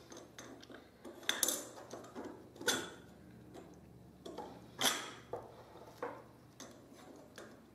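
Thin steel grill rods clinking and tapping against the metal tube side bars of a home-made portable grill as they are fitted into place: a handful of light metallic clicks, the loudest about five seconds in.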